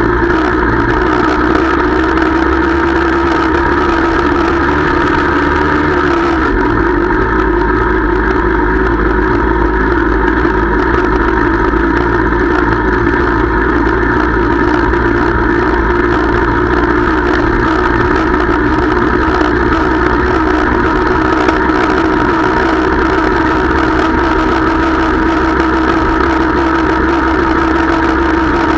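Small two-stroke moped engine running steadily, heard from on board the moving moped. Its note shifts slightly about six seconds in.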